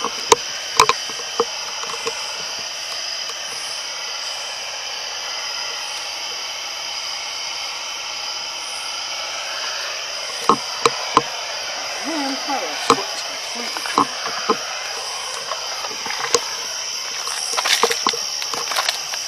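A steady high-pitched hiss, with sharp clicks and knocks scattered through it, most of them about ten seconds in and again near the end.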